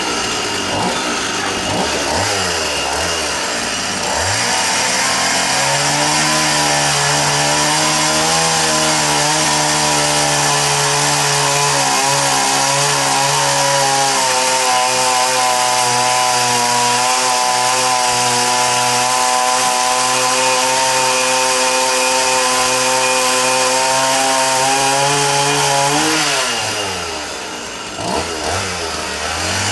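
Two-stroke chainsaw revving up and held at high speed while carving into dry tree wood, then dropping back to idle near the end and revving again.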